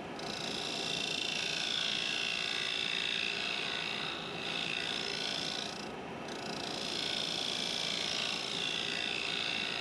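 Wood lathe running while a carbide turning tool cuts an offset-mounted wooden blank: a steady scraping hiss of shavings coming off. It eases off briefly about four seconds in and again about six seconds in.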